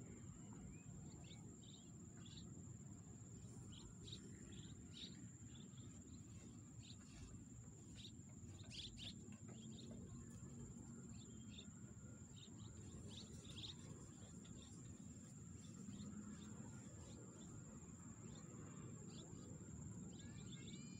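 Faint outdoor ambience: a steady high-pitched insect drone, scattered short bird chirps and a low background rumble.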